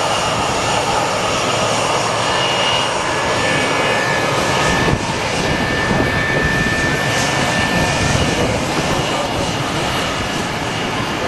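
McDonnell Douglas MD-82's twin rear-mounted Pratt & Whitney JT8D turbofans running at taxi power: a steady rushing jet noise with a high whine over it.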